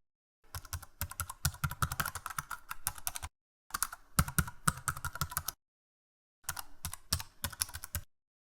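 Computer keyboard typing sound effect: three runs of rapid key clicks, each a couple of seconds long, separated by short gaps of complete silence.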